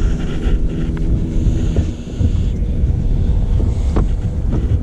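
Wind buffeting the microphone on a bass boat over a steady low mechanical hum, with a couple of sharp knocks, about a second in and near the end.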